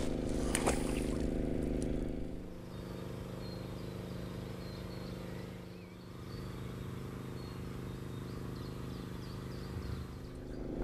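A steady low mechanical hum made of several held tones, like a distant motor running, with a few light clicks in the first second and faint bird chirps over it.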